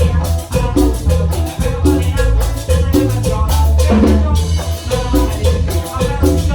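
A band playing upbeat Latin dance music: a pulsing bass line under a steady beat of shaken and struck percussion, with melodic instrument lines over the top.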